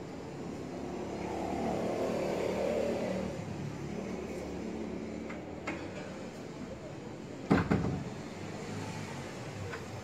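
A steady low vehicle rumble that swells over the first few seconds and eases off. A click about halfway through, then a sharp double knock from the wooden door and its handle, the loudest sound here.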